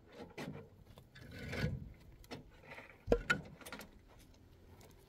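Scattered clicks and clatter, with a short rustling swell about a second and a half in and two sharp knocks a little after three seconds.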